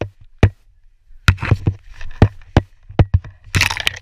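A series of about a dozen sharp, irregularly spaced clicks and knocks, with a brief rustle of brushed foliage near the end.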